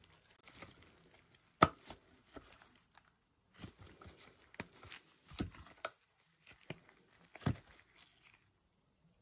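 Silicone mould being flexed and peeled away from a cured resin casting: sticky peeling and crinkling with scattered sharp pops, the loudest about one and a half seconds in.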